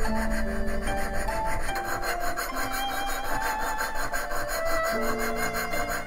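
Needle file rasping back and forth in quick, even strokes inside the tang hole of a copper tsuba, widening it to fit the blade's tang. Background music plays underneath.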